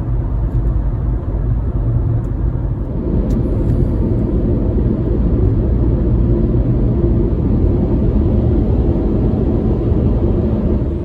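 Car driving at highway speed: a steady, loud rumble of engine and road noise.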